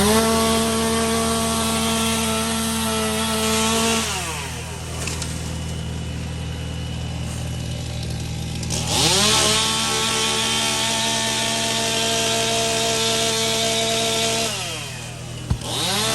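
Gas chainsaw revving to full throttle and holding there for about four seconds, then dropping back to idle. It revs up again for about five seconds and drops, then revs once more near the end.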